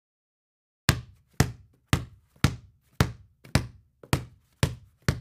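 Sound effect of an animated intro: a steady run of sharp, hollow knocks, about two a second, starting about a second in after silence.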